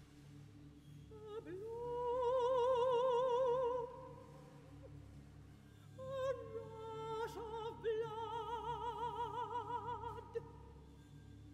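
Operatic soprano singing two long, soft held notes with a wide vibrato, the first swelling up a few seconds in and fading, the second entering about halfway through. Beneath, a choir of tenors and basses holds one low note over a deep sustained orchestral bass note.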